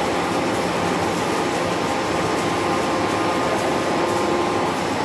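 Hydraulic power pack's electric motor and pump running steadily, a continuous mechanical hum with faint steady tones, while hydraulic rams are pressure-tested.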